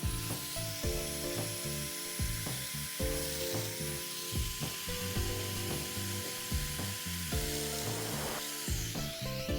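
Festool Domino joiner running, its cutter plunging mortises into wood, with a steady high-pitched motor whine and cutting hiss. Background music plays alongside.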